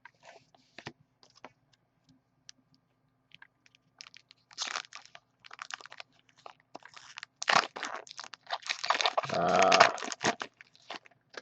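Foil trading-card pack wrappers being crinkled and torn open, with scattered small clicks of cards being handled at first, then louder crackling bursts toward the end.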